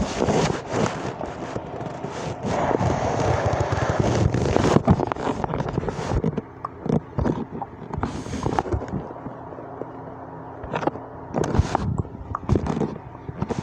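A person making a run of irregular clicking, popping and crackling noises.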